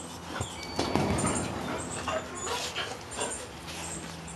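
A puppy whimpering softly, mixed with rustling and handling noises as it is petted.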